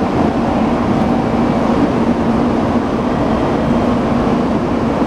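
Diesel engines of the Futatsuboshi 4047's KiHa 40 and KiHa 47 railcars running under power as the train pulls away, a loud, steady low drone with a hum in it.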